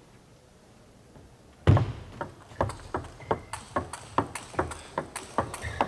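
A table tennis ball being played in a fast rally: sharp clicks of the ball on bats and table, about three or four a second. They begin a little under two seconds in, with the first knock the loudest.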